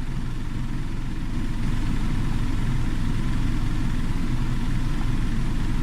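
A car's engine running, a steady low rumble heard from inside the cabin. It gets slightly louder about a second and a half in.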